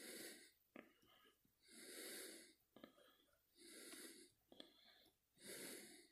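A man breathing softly close to the microphone, four breaths about two seconds apart, with a few faint clicks between them.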